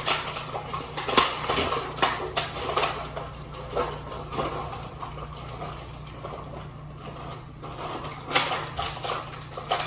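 Plastic toy packaging being handled and opened: irregular crinkles and sharp clicks as action figures are worked out of their box and plastic tray.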